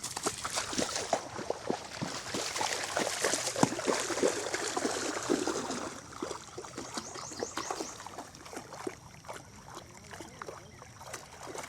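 Shallow river water splashing and sloshing as someone wades through it: a quick, irregular run of small splashes that thins out about halfway through.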